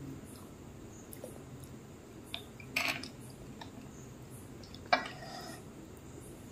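A plastic spoon scraping and clinking against a small glass bowl of set curd: a short scrape about three seconds in and a sharp clink near five seconds that rings on briefly.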